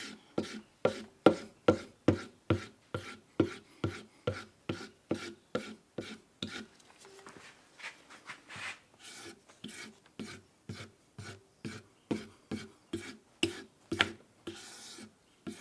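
Knife blade stropped on a leather strop loaded with polishing compound: a quick, even run of short dragging strokes, about two or three a second, polishing the convex edge.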